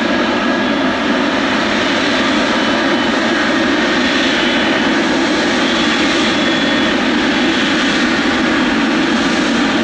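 Boeing 777F freighter's GE90 turbofan engines running steadily while taxiing: an even jet rush with a faint high whine over it.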